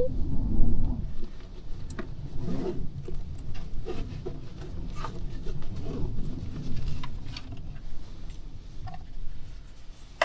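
A low rumble in the first second, then light clicks, rattles and small knocks of small objects being handled.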